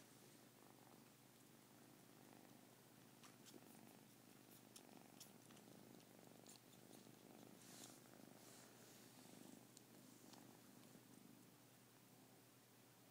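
Kitten purring, faint and steady, with a few soft clicks scattered through it.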